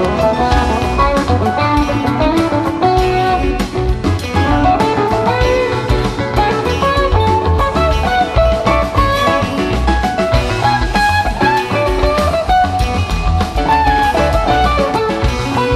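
Live rock band jam: electric guitar playing winding lead lines over bass guitar and drum kit.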